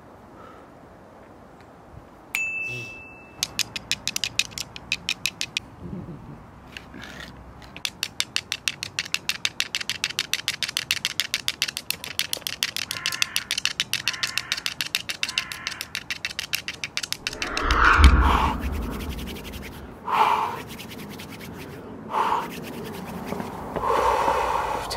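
Fast, regular clicking strikes, about five a second, in runs that stop and start, from hands working at something close up. Four short loud sounds follow in the last seven seconds, the first with a heavy low thud.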